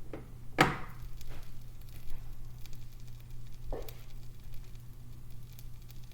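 Grilled cheese frying in a buttered pan, faint crackling sizzle, over a steady low hum. A sharp knock comes about half a second in and a softer one a little past the middle.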